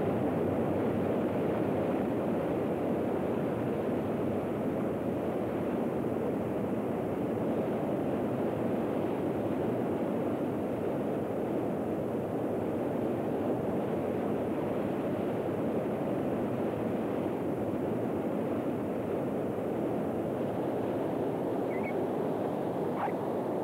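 Steady rushing noise with no pitch to it, easing off slightly over time, with a few short high squeaks near the end.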